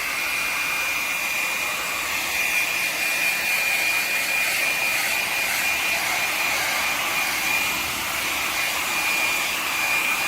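Electric hair dryer running steadily: a constant rush of blown air with a thin, high, steady whine from its fan motor.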